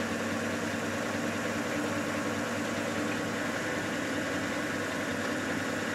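Vehicle engine idling, a steady low hum that does not change.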